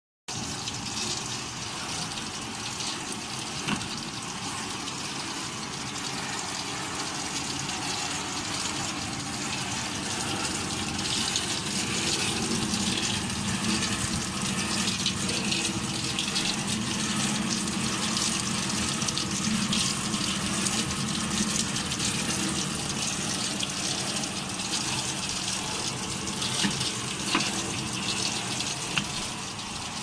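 Water jets of a bottle washing machine spraying up through the bottle nozzles inside the machine's cover: a steady hiss of spray with a low hum beneath. A few sharp clicks, mostly near the end.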